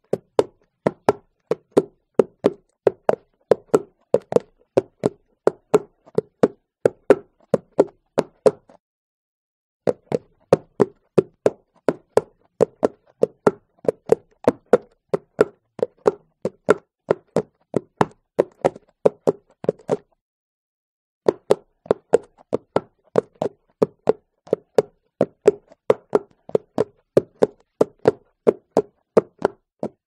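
Horse hooves clip-clopping in a steady rhythm, about three to four sharp hoofbeats a second, stopping twice for about a second before starting again.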